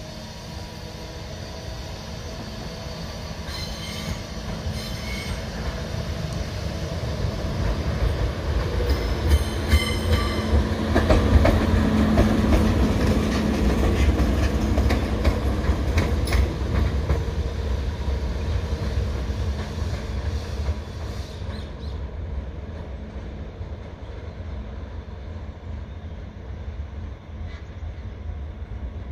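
JR Freight HD300 hybrid shunting locomotive passing: a steady engine hum and clicking wheels over rail joints grow louder to a peak about halfway through, then fade as it moves away, with a few brief high squeals as it approaches.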